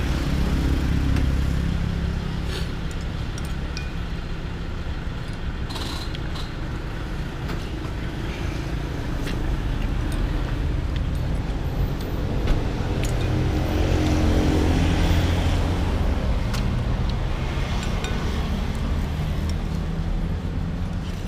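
Road traffic going by, a low rumble that swells as vehicles pass near the start and again about two-thirds of the way in. Scattered sharp clicks of chopsticks and spoon against a bowl run through it.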